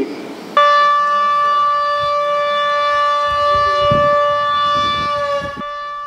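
Outdoor public-warning siren blaring from horn loudspeakers on a pole, starting about half a second in and holding one steady tone that dips slightly near the end. It is sounding as a warning of an emergency water release from a dam.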